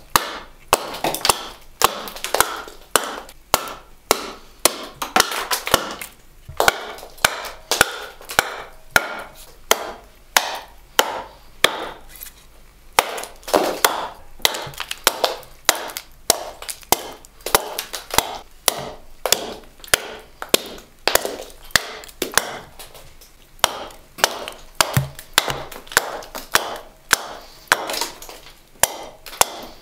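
Forged carving axe hewing a wooden bowl blank that rests on a chopping stump: a steady run of sharp chops, about one to two a second.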